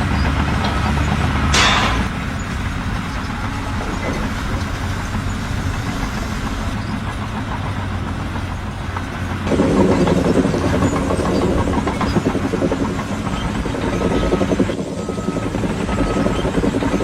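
Heavy machine engine running steadily, with a short sharp noise early and a louder, rougher stretch from about halfway through.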